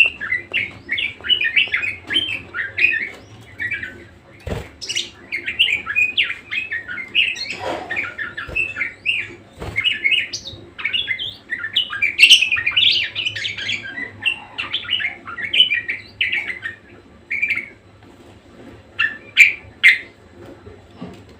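Budgerigar warbling in a fast, busy run of chirps and chatter that breaks off after about seventeen seconds, followed by a few last chirps. A couple of sharp clicks come through early on and near the middle.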